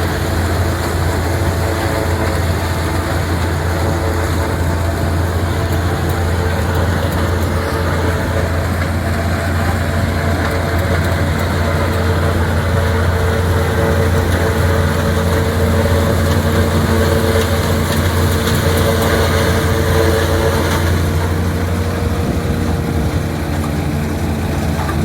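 Tractor diesel engine driving a maize silage chopper, running steadily with a low drone and a steady machine whine over it. The whine drops slightly in pitch near the end.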